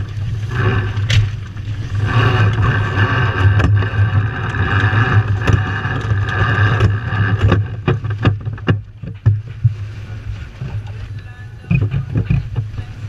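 Wind buffeting the microphone over water rushing and splashing along the hull of a sailboat driving hard under sail in a strong breeze. There is a run of sharp knocks about eight to nine seconds in.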